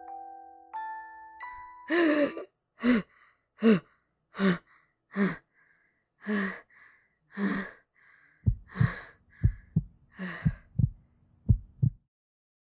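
Soft chiming mallet-percussion notes fade out, then a male voice gasps and pants in pain, short breathy gasps repeating about every three-quarters of a second. Near the end a fast run of low heartbeat thumps joins the gasping, and everything cuts off suddenly.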